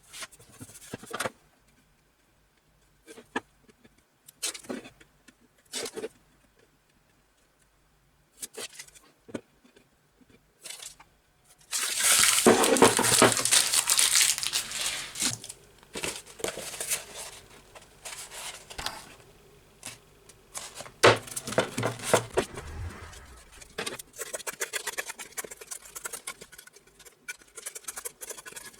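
Sandpaper and double-sided tape being handled and peeled: scattered clicks and rustles, then a loud tearing stretch about twelve seconds in that lasts a few seconds, followed by crackly handling noise.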